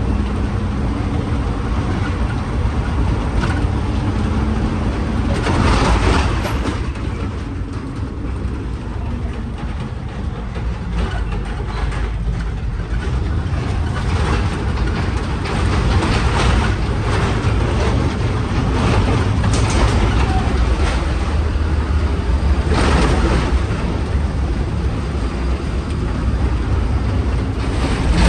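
Vehicle on the move: steady low engine and road rumble, with a few brief louder rushes about six seconds in, around twenty-three seconds and near the end.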